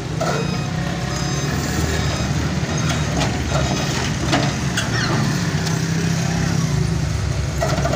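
Heavy diesel engines of a wheeled excavator and a truck running with a steady low drone, with faint repeated short beeps and a few sharp knocks.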